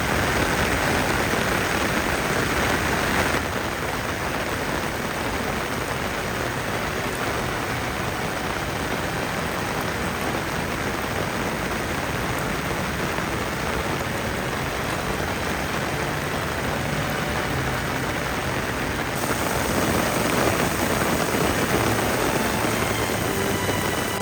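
Heavy rain falling steadily, a dense even hiss; it drops a little about three seconds in and swells again near the end.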